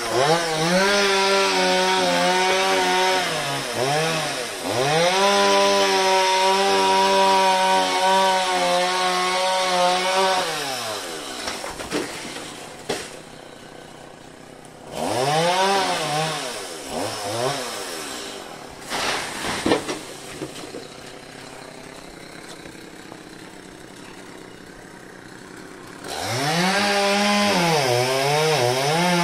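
Two-stroke chainsaw cutting into an areca palm trunk at full throttle, its engine pitch repeatedly sagging and recovering as the chain bites. It drops back to a much quieter run for much of the middle, with a short burst of cutting and a few sharp knocks, and comes back to full revs near the end.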